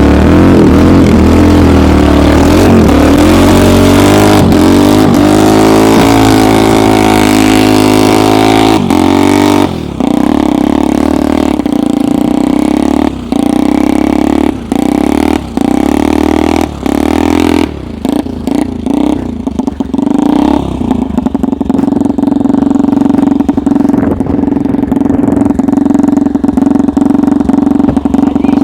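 Homemade snowmobile's engine run at full throttle while its snow-clogged homemade track is stuck in deep snow. From about ten seconds in the engine note drops away briefly again and again, then holds a steady high speed.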